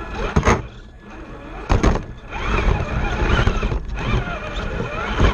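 Radio-controlled scale rock crawler driving over the course, heard from a camera mounted on the truck: its motor and gears whine, rising and falling with throttle, broken by sharp knocks as the chassis and tyres bump over obstacles about half a second in, near two seconds, and near the end.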